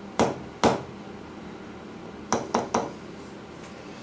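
Soft-faced mallet with plastic faces tapping an aluminium pillar-block casting down onto a parallel in a milling-machine vise to seat it flat: two taps, then about a second and a half later three quick taps.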